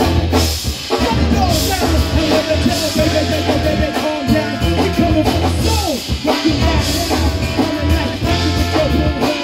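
Live brass band playing: trumpets, trombone and saxophone over a sousaphone bass line and drums, with a short break in the groove about six seconds in.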